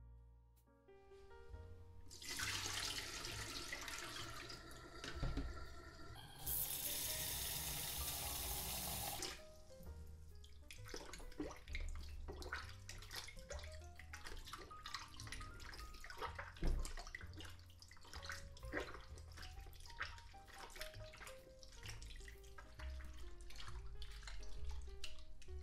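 Tap water running into a bowl for about seven seconds, fuller and louder for its last three, then irregular splashing and sloshing of flour dough being kneaded and washed in water to rinse out the starch for seitan. Soft piano music plays underneath.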